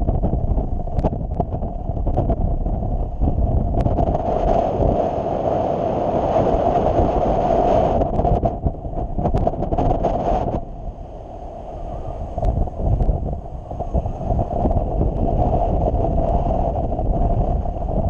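Airflow of a paraglider flight buffeting the camera's microphone: a loud, steady rushing rumble. It grows hissier from about four seconds in, drops back sharply at about ten and a half seconds, and eases briefly just after.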